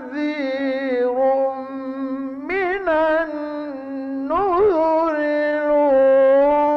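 A male Qur'an reciter's voice in melodic tajweed recitation, drawing out one long held phrase with quick ornamental turns about two and a half and four and a half seconds in.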